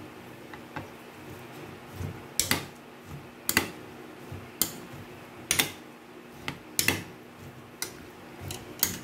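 A metal spoon clinking against the side of a bowl, sharp knocks at an uneven pace of about one a second, as sweet potato sticks are tossed in a cornstarch batter.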